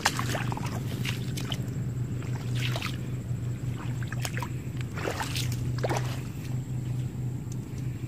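Bare feet squelching and splashing through shallow muddy water, a scatter of separate steps and splashes over a steady low hum.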